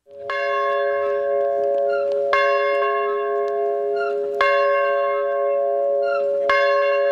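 A large bell hung on a wheel, swung by a rope, ringing: four strokes about two seconds apart, each ringing on until the next.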